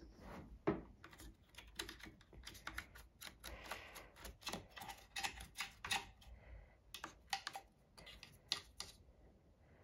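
Irregular light clicks and taps of metal parts being handled and worked by hand inside an opened Pfaff 1229 sewing machine.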